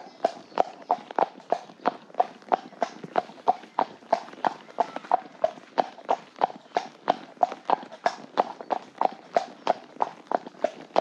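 A horse's hooves clip-clopping on a wet tarmac lane, an even rhythm of about four footfalls a second.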